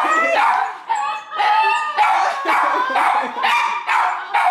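Women shrieking and squealing in excited, emotional reaction, a rapid run of short high-pitched cries with a brief lull about a second in.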